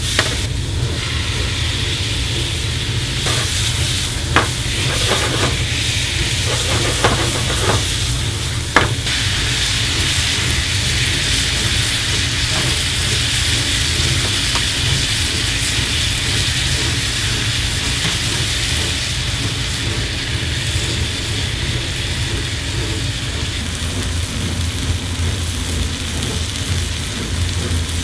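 Food sizzling and frying in a skillet over a gas burner: vegetables and bacon being stirred, then a tomato-sauce egg dish cooking, as a steady sizzle. In the first several seconds a few sharp clanks of the utensil against the pan break through.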